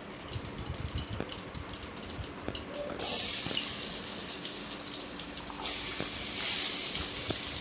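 Mustard and cumin seeds crackling in hot oil in a pan, as scattered small pops. About three seconds in, chopped onion, green chilli and curry leaves are tipped in and a loud steady sizzle starts. The sizzle swells again a couple of seconds later as more onion goes into the oil.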